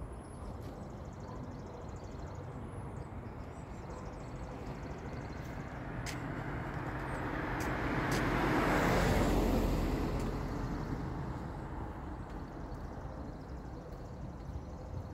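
A car driving past on a paved road, its tyre and engine noise swelling to a peak just past halfway and fading away again.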